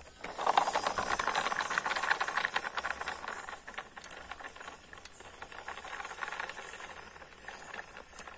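Radio-controlled model truck driving over grooved concrete: a continuous clattering rattle of its small wheels and drivetrain with a hissy edge, loud at first and growing quieter after about three seconds as the truck pulls away.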